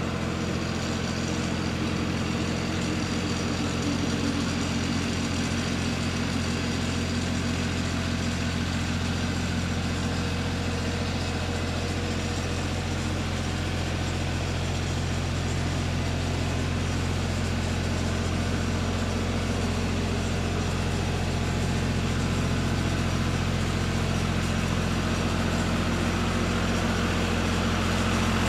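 John Deere farm tractor's engine running steadily at a low, even drone, growing a little louder near the end as the tractor comes closer.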